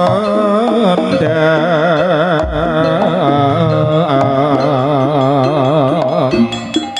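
Live jaranan gamelan music: a wavering, heavily ornamented lead melody held over steady low sustained tones, with drums and struck percussion coming back in near the end.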